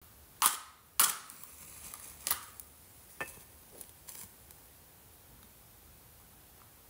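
Lighting a candle: a handful of sharp strike-like clicks and scrapes, the two loudest about half a second apart within the first second, the second trailing off briefly, then fainter ones until about four seconds in.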